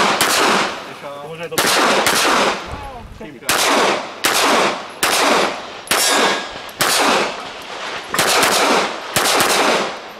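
Handgun fired in a rapid string during an IPSC stage: about ten sharp shots, some in quick pairs and some as singles, a fraction of a second to about two seconds apart, each followed by a short echo.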